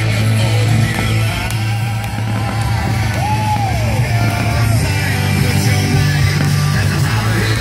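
Rock music with a singing voice over a steady, loud bass.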